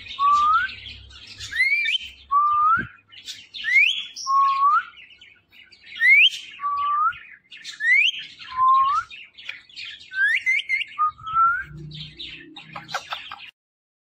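Indian ringneck parakeet whistling a repeated two-note phrase, a high rising note followed by a lower rising note, about every two seconds, with a short burst of chattering near the end before the sound cuts off.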